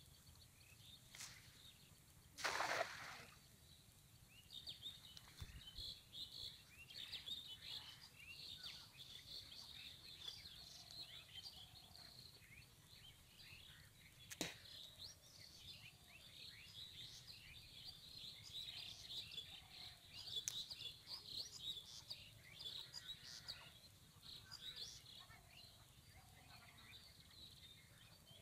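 Small birds chirping and twittering on and off throughout, fairly faint. About two and a half seconds in there is a brief, louder burst of noise, and a single sharp click comes about halfway through.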